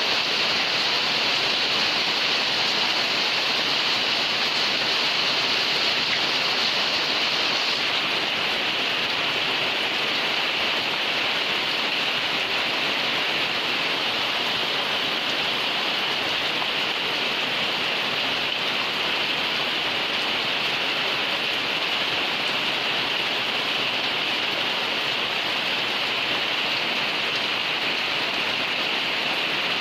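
Heavy rain falling steadily, a continuous even hiss of rain on surfaces.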